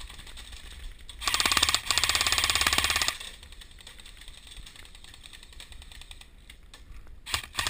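Airsoft electric gun firing one full-auto burst of about two seconds, a rapid even rattle of shots, close by; a few sharp snaps near the end.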